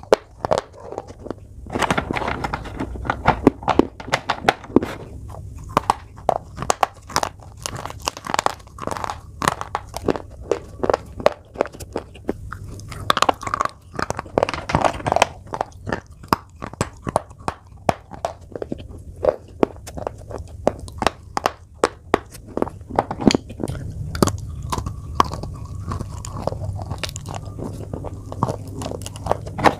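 School chalk being bitten and chewed: a dense run of sharp, irregular crunches and crackles as pieces of chalk are bitten off and ground between the teeth.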